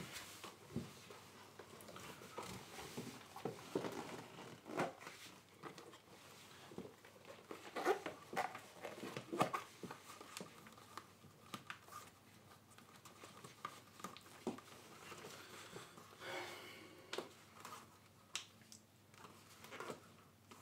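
Clothing rustling and scattered small knocks and clicks of clothes and objects being handled, coming irregularly.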